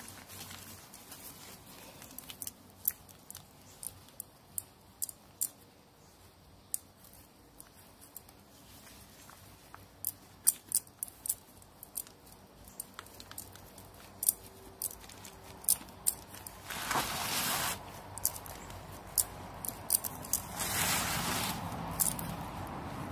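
Hands pressing and patting wet, concrete-soaked fabric over a planter form: scattered sharp clicks and soft squishing, with two rushes of noise about a second long, the first about two thirds of the way through and the second near the end.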